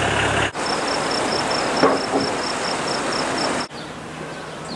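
An insect chirping outdoors: one high, even chirp repeated about four times a second over steady hiss. It begins about half a second in, after a steady engine hum cuts off, and the chirping cuts off abruptly about three and a half seconds in, leaving quieter hiss.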